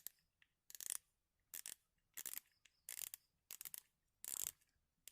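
Pioneer Vanadium Power 1000 spinning reel being worked by hand, giving a short rasping mechanical whir at each stroke, about one and a half times a second.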